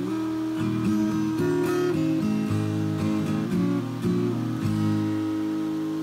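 Background music: acoustic guitar picked and strummed through a run of changing chords, settling on one held chord that rings out about five seconds in.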